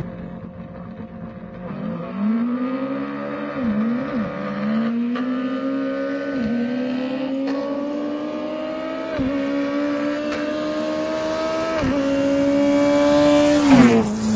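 Street drag-racing cars accelerating hard at full throttle from a distance. The engine note climbs and drops back at each of about five upshifts and grows louder as they approach. They pass close by near the end with a sudden drop in pitch.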